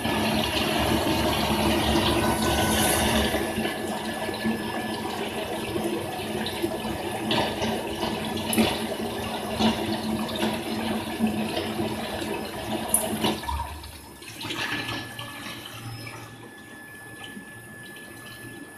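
Quench water spraying onto a small steel shaft on an induction hardening machine: a steady rushing hiss that cuts off about thirteen seconds in. After it stops, quieter knocks and a faint steady high tone remain.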